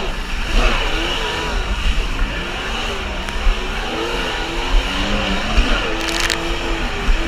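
Kawasaki JS550 stand-up jet ski's two-stroke twin engine running under way, its pitch wavering up and down with the throttle, over rushing water and heavy wind rumble on the microphone. A brief hiss of spray comes about six seconds in.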